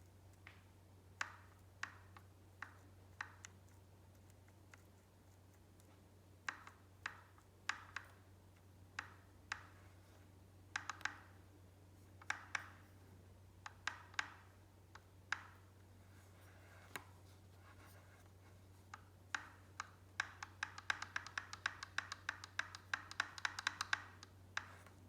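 Clicks and knocks from inside a Rocky Mountain Powerplay electric mountain bike motor as its drive cog is turned by hand. They come as single sharp clicks at uneven intervals, then a fast rattling run of clicks near the end. The owner takes the noise for something inside the motor, not the cog mounting or lockring.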